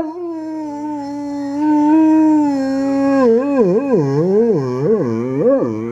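A dog howling: one long held note, then a wavering howl that swoops up and down in pitch about twice a second.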